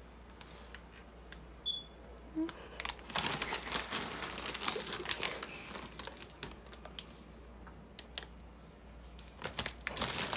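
A plastic snack bag of vegetable sticks crinkling and crackling as a hand rummages in it, in bursts, loudest from about three seconds in and again near the end.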